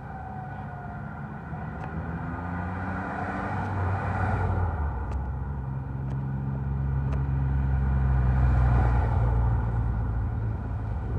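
Fire rescue truck's diesel engine driving past and accelerating: a low engine rumble that rises in pitch, then holds, loudest about four and nine seconds in. In the first moment, the tail of a Federal Q2B mechanical siren winds down in pitch.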